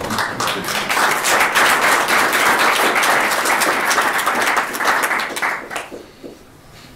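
Audience applauding: dense clapping that starts at once and dies away about six seconds in.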